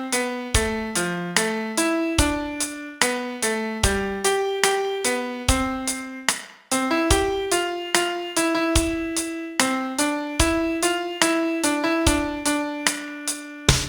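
Solo piano playing a slow song melody note by note over low bass notes, each note struck and then decaying, with a short gap about six and a half seconds in.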